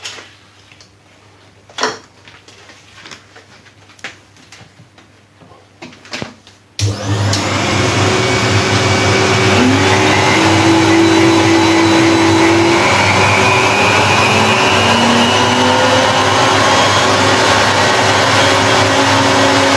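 A few light knocks and clicks, then about seven seconds in a dust extractor switches on with a loud steady rush. The table-mounted router's motor spins up with it, its whine rising in pitch as the speed is built up gradually from the slowest setting.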